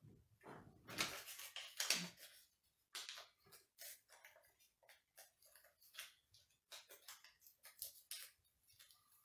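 Small folded paper slip unfolded by hand: faint, irregular crinkling and rustling of paper, a little louder about one and two seconds in.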